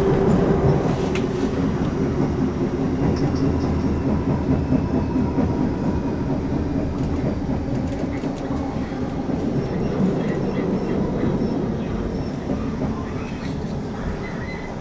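Interior of a Class 455 electric multiple unit on the move: traction motors humming steadily over the wheels running on the rails. The sound grows gradually quieter towards the end as the train slows into a station stop.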